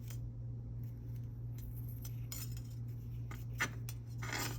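Light metallic clicks and a brief scrape from thin 24 gauge jewelry wire and pliers being handled while wrapping, over a steady low hum.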